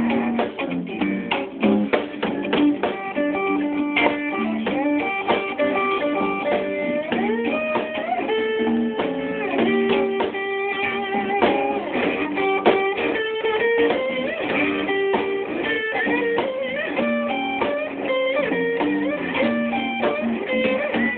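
Guitar music with no singing: quick plucked single-note lines with many bent notes, over strummed chords.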